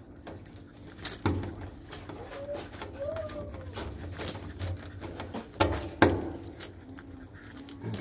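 Gloved hands handling a plastic bag and a tool at a furnace's gas valve and igniter wiring: rustling and handling noise with scattered sharp clicks, the two loudest a little past the middle, about half a second apart.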